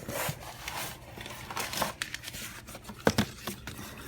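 Paper and plastic packaging rustling and crinkling as it is handled and a manual is pulled out of the box, with scattered clicks and a sharp knock about three seconds in.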